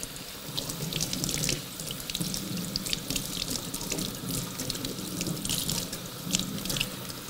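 Kitchen faucet running into a stainless steel sink while purple kale leaves are rinsed under the stream. It is a steady rush of water broken by frequent small splashes and patters as the leaves move through it.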